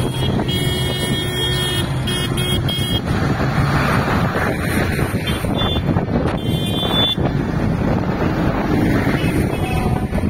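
Diesel tractor engines running as a procession of tractors approaches, with short high horn toots about a second in and again around six seconds in.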